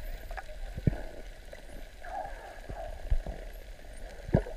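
Muffled underwater ambience: a steady low rumble of water, with three dull thumps about a second in, just past three seconds and near the end.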